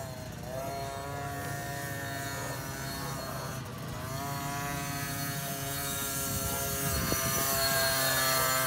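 Small youth dirt bike engine pulling along the track. Its pitch rises as it accelerates about half a second in and again about four seconds in, and it grows louder toward the end as the bike comes closer.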